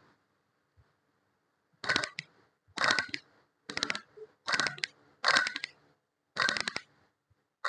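Old Mitsubishi Lancer diesel water pump turned over by hand in a series of short spins, about one a second, each giving a brief gritty rattle from its bearing. The mechanic takes this noise as the sign of the worn pump bearing behind the hollow hum the car made after starting.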